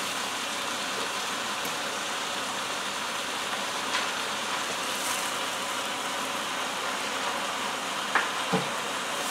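Raw chicken drumsticks sizzling steadily in a hot electric cooker pot, with a couple of light clicks near the end.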